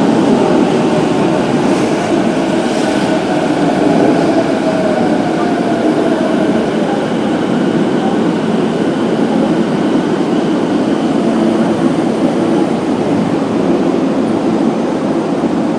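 Subway train pulling into an underground station and slowing to a stop, its motor whine falling in pitch over the first several seconds above the steady rumble of the cars.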